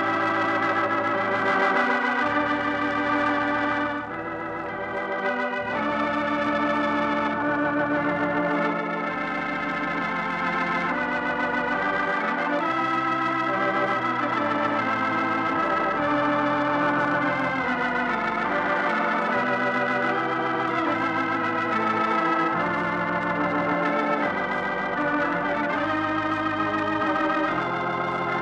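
Organ music: slow, sustained chords over held bass notes that change every second or two.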